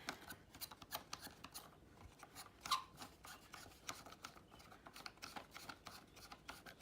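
Faint, irregular clicks and scraping as the round clamp ring on a motorcycle's cigarette lighter socket is worked loose by hand.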